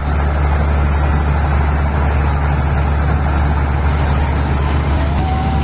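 Fairground ride train running, a loud steady low drone with a rumble over it; a faint short whistle-like tone sounds near the end.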